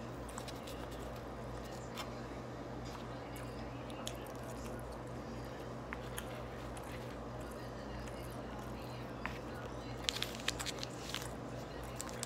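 Close-up chewing of beef and rice, with soft wet mouth clicks and a run of sharper clicks about ten seconds in, over a steady low background hum.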